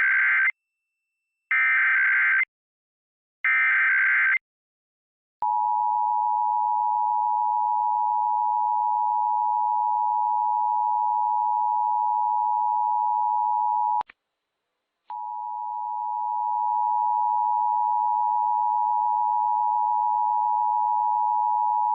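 Emergency Alert System test tones: three one-second bursts of screechy SAME header data, about a second apart, then the EAS two-tone attention signal held steady. The tone cuts out for about a second around the middle and comes back, swelling over a couple of seconds.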